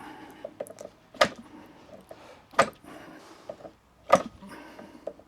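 OS Max 40 model glow engine being flicked over by hand at the propeller, three short sharp flicks about a second and a half apart. The engine turns over against compression but does not catch.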